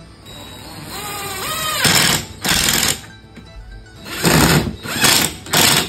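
Cordless drill spinning up with a rising whine, then running in five short loud bursts as it bores into the wooden frame.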